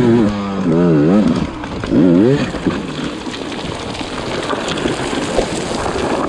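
Dirt bike engine revving, its pitch swinging up and down twice in quick succession. It then gives way to a rush of noise as the bike crashes and slides in loose gravel.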